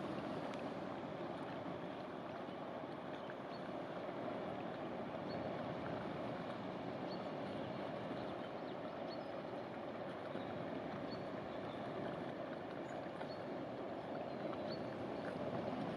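Inland cargo barge passing, with a steady rush of water along its hull.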